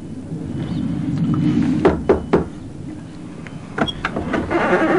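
Two knocks on a front door in quick succession, about two seconds in, over a steady low rumble of background noise.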